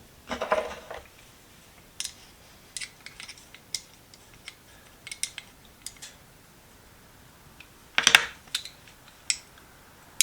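Small metal hand-tool parts clicking and clinking as they are handled and fitted back together, in scattered light ticks with a louder rattle of clicks near the end.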